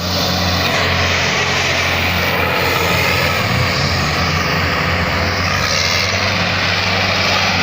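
Tractor engine running steadily and loudly, a continuous low drone with engine noise over it.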